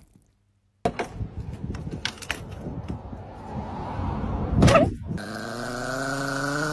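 Small white Chihuahua growling steadily, starting about five seconds in, after a few seconds of rustling and clicks.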